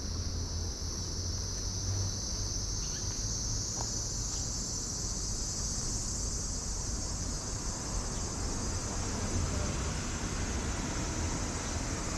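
A steady, high-pitched chorus of cicadas that edges slightly higher about four seconds in, over a low rumble.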